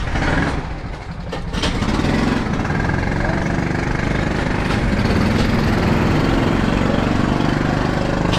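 Rental go-kart engine starting and then idling steadily. It surges briefly at first, catches with a sharp click about a second and a half in, and runs evenly from then on.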